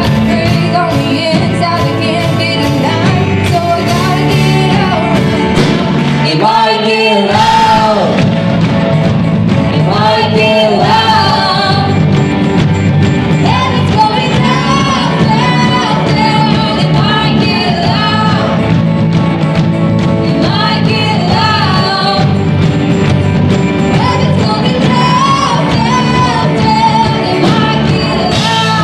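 Live worship band playing a loud, upbeat song: a group of singers over electric and acoustic guitars, keyboard and drums. About seven seconds in, the bass end drops out for about a second while the voices carry on.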